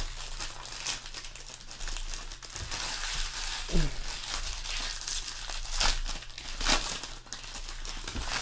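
Foil trading-card pack wrappers being torn open and crumpled by hand, a continuous crackling crinkle with sharp spikes. A short falling tone sounds about four seconds in.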